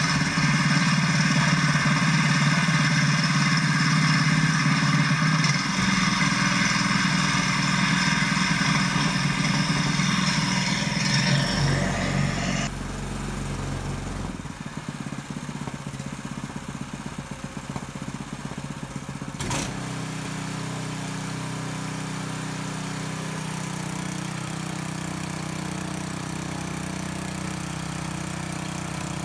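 Predator 224cc single-cylinder four-stroke engine running, held at high revs for about the first twelve seconds to test whether its ignition coil limits revs. It then drops back, and after a sharp click about two-thirds of the way through it settles to a steady idle.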